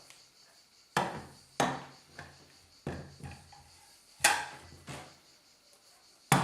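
About eight hard, irregular knocks and clicks as the cordless circular saw and its 20 V battery packs are handled and set down.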